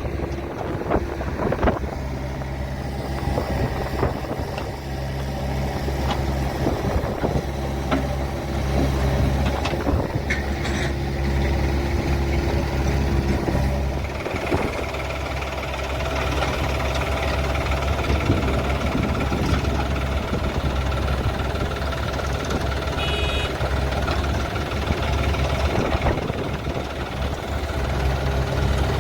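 Heavy diesel engine running steadily at low revs, with some rise and fall in load. There is a brief high beep about two-thirds of the way through.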